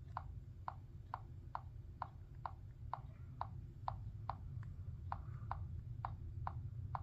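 Light, regular clicking, about two clicks a second, over a steady low hum.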